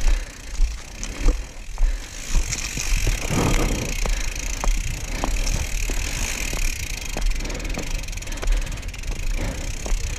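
Mountain bike being ridden over a rough dirt trail: tyre noise with frequent short knocks and rattles from the bike, over a steady low rumble.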